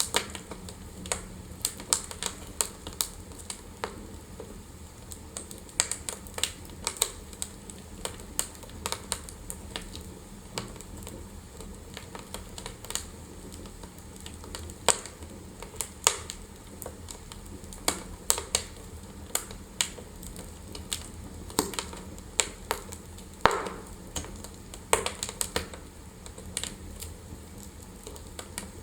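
Wood fire burning in a fireplace, crackling with irregular sharp pops and snaps over a steady low rumble of flame.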